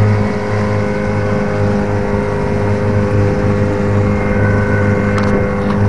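Loud boat motor running at a steady speed as the boat moves across the lake, a constant hum with an even pitch throughout.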